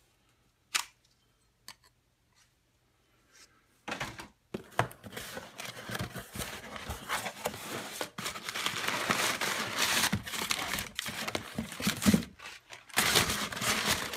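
A few light clicks and knocks, then, from about four seconds in, continuous tearing and crinkling of a package being torn open.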